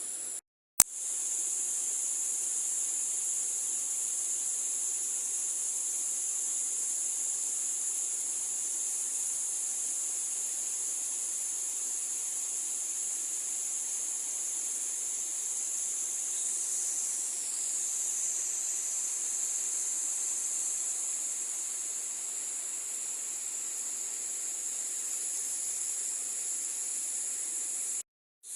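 Steady, high-pitched insect chorus, shrill and unbroken, with a brief dropout and a click about a second in and another short gap near the end.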